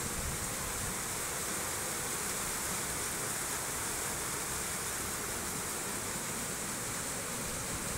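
Fast-flowing floodwater rushing past in a steady, continuous wash of noise.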